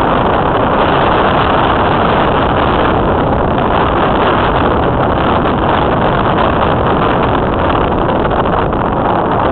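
Steady wind rush and road noise inside an open convertible car on the move, the wind buffeting the microphone.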